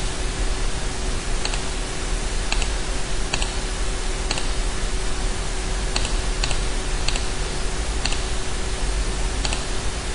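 About ten short, sharp computer mouse and keyboard clicks, spread irregularly and some in quick pairs, over a steady hiss with a low hum and a faint steady tone from the recording setup.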